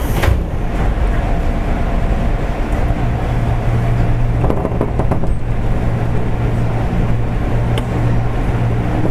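Interior running sound of a JR East 205 series electric train, heard from the end of a car: a steady low drone of the moving train that grows stronger about a third of the way in. A high hiss stops just after the start, and a few knocks come about halfway through.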